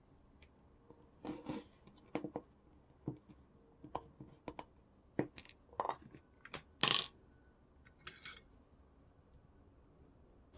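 Irregular light clicks and knocks of small hard parts and tools being handled and set down on a workbench, about a dozen in all, with the loudest a little before the seven-second mark.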